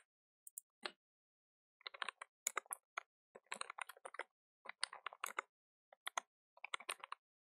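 Faint computer keyboard typing: a few separate keystrokes, then from about two seconds in a fast, uneven run of key presses that stops just before the end.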